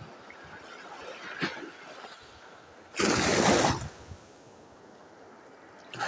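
Sea surf washing up the sand at the shoreline: a faint wash at first, then a loud rushing hiss about halfway through that lasts about a second and fades, and another loud rush starting just at the end.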